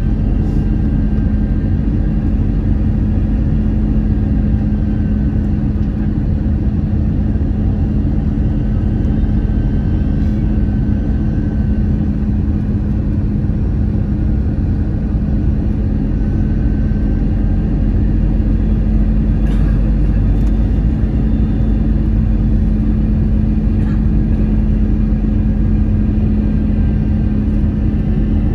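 Jet airliner cabin noise on final approach: a steady rumble of the engines and rushing air, with a constant low hum and a faint high whine that comes and goes.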